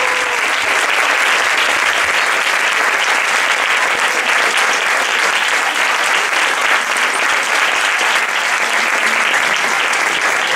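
Dense, steady applause from a large crowd clapping.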